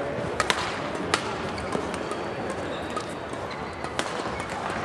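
Badminton rackets striking the shuttlecock in a rally: several sharp hits, most of them in the first two seconds, with one more near the end. A steady murmur of crowd voices fills the hall underneath.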